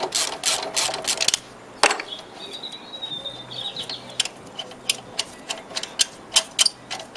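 Ratchet wrench with a 12mm socket clicking rapidly, about six clicks a second, as a front brake caliper bolt is undone. The clicking stops after about a second and a half and is followed by one sharp click, then scattered slower clicks later on.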